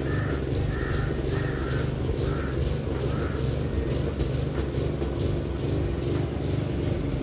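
Gasoline walk-behind lawn mower engine running steadily while cutting grass.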